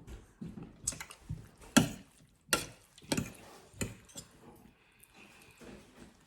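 A series of about six sharp knocks and clicks, irregularly spaced, over quiet room sound.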